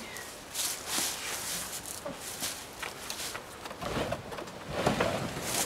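Irregular rustling, scraping and short knocks from a pop-up camper being folded down by hand, getting louder and fuller about four seconds in.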